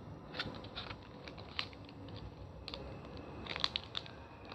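Plastic packaging crinkling and crackling as it is handled and worked open, with scattered small clicks and a quick cluster of sharper ticks about three and a half seconds in.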